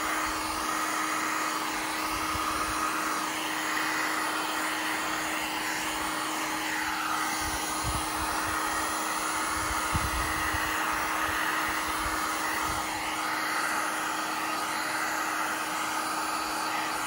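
Handheld electric heat gun running steadily, a constant rush of blown air over a low steady hum, as it is played over wet epoxy resin to spread and feather the poured colours.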